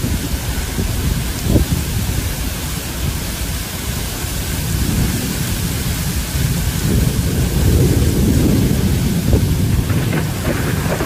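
Torrential rain pouring down in strong wind: a steady dense hiss over a gusty low rumble that swells from about six to ten seconds in.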